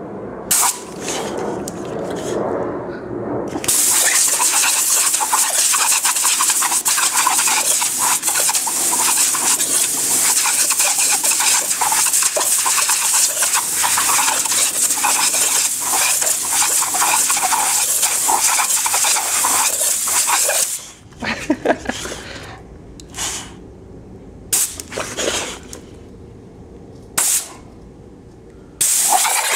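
Compressed air hissing from an air-compressor blow gun: a few short blasts, then one long continuous blast of about seventeen seconds, then several short separate blasts near the end, with a boxer dog's sounds mixed in as it snaps at the air stream.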